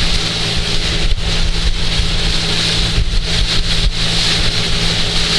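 A boat's inboard engine running steadily with a low, even drone, under a constant hiss of wind and water.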